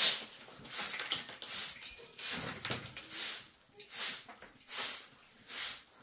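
Straw hand broom sweeping a bare concrete floor: a steady run of short swishes, a little more than one a second.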